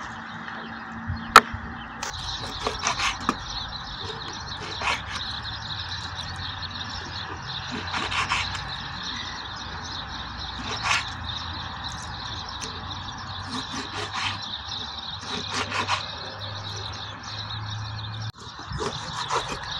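Knife slicing raw red meat and fat on a wooden cutting board: scattered short cuts and knocks of the blade on the board, the sharpest about a second and a half in, over a steady background hiss.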